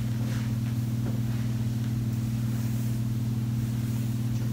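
A steady low hum that holds one pitch, with nothing else of note.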